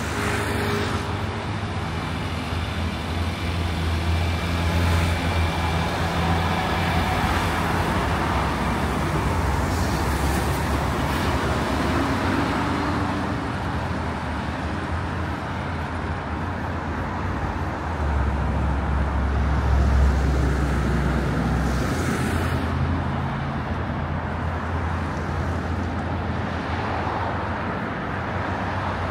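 Road traffic on a city street: a steady rumble of passing cars, swelling louder as a heavier vehicle goes by about twenty seconds in.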